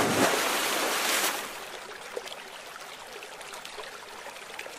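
Water running over a low concrete weir and trickling in a shallow pool, louder for the first second and a half, then quieter with small gurgles and splashes.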